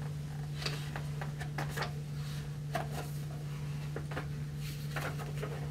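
Hardcover picture book being handled and its pages turned: scattered light paper rustles and taps over a steady low hum.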